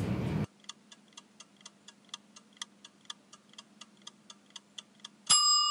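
Countdown-timer sound effect: a fast, even clock ticking that ends near the end in a ringing bell-like ding, the signal that the answer time is up.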